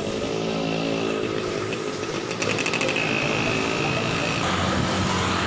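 A motorcycle tricycle's small engine passes close by, its pitch falling slightly as it goes, with a high thin steady tone about halfway through.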